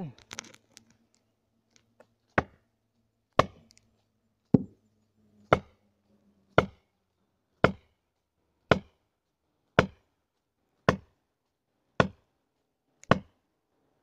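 A felling wedge being hammered into the cut of a tree: eleven sharp, evenly paced blows about one a second, driving the wedge in to tip the cut-through tree over.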